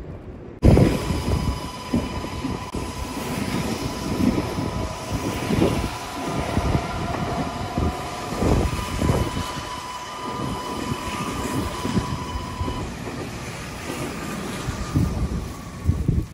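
Meitetsu electric train moving along a station platform, starting suddenly about half a second in: steady rumble of wheels on rail with a high electric motor whine in several steady tones, which stops about three quarters of the way through.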